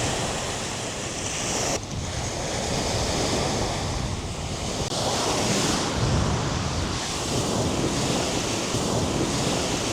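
Wind blowing across the microphone, a loud rushing, rumbling noise that rises and falls in gusts, with a sudden dip about two seconds in.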